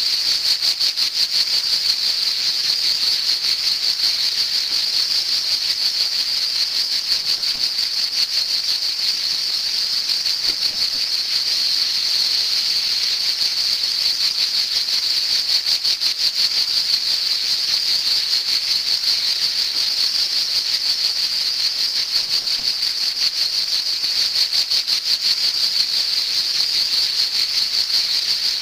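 Cicada song: male cicadas making a loud, steady, high-pitched rasping buzz with a fast, even pulse.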